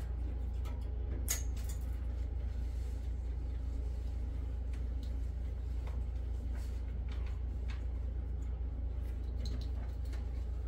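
A steady low hum, with a few faint small plastic clicks as twist-on wire nuts are unscrewed by hand from a light fixture's power wires.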